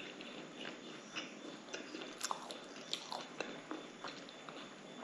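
Close-up chewing of a mouthful of homemade breadcrumbed cutlet: wet, irregular mouth clicks and smacks, a few of them sharper and louder about halfway through.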